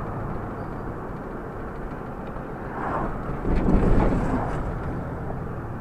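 Steady engine and tyre noise inside a moving car's cabin. About three and a half seconds in, a louder whoosh rises and fades as an oncoming car passes.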